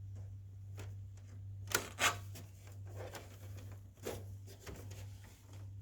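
Scattered clicks and knocks of hands and a screwdriver working on the plastic casing of a split air conditioner's indoor unit, as its cover screws are loosened. Two sharper clicks come close together about two seconds in, over a steady low hum.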